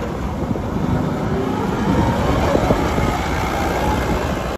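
Caterpillar propane (LPG) forklift's engine running as the forklift drives.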